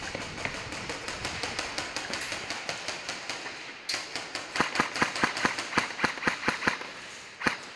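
Airsoft guns firing: a fast string of sharp shots, about six a second for two seconds in the second half, then a single shot near the end, over faint rapid clicking.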